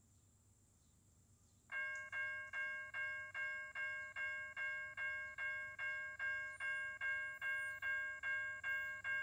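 Railroad grade-crossing warning bell starting up about two seconds in and ringing steadily at about two strikes a second, as the crossing activates ahead of an approaching train.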